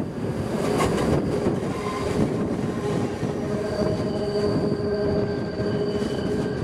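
Rhaetian Railway electric train running through a curve, its wheels squealing against the rails over the rumble of the running gear. The squeal is a few steady high tones, with more joining about halfway through.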